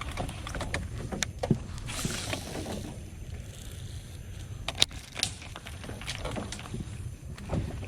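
Light knocks and clicks of handling in a jon boat, a few sharp ones scattered through, over a steady low rumble.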